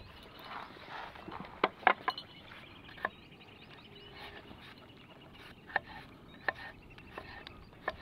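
Kitchen knife cutting raw potato into cubes on a wooden cutting board: several sharp knocks at irregular intervals. Faint birdsong chirps in the background.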